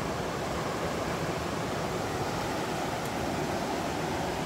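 Swollen, muddy river rushing through rapids: a steady, even rush of water.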